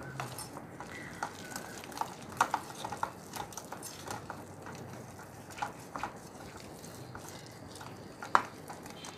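Metal hand whisk clicking and scraping against a ceramic bowl while beating a thick flour, egg and water batter, in irregular taps with one sharper knock near the end.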